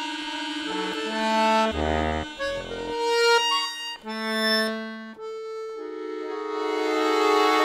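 Chromatic button accordion playing a string of held notes and short chords that change every second or so. From about six seconds in it settles on a sustained chord that swells louder.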